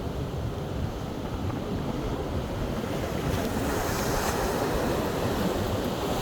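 Ocean surf breaking and washing on a beach. The wash swells louder and hissier about three seconds in.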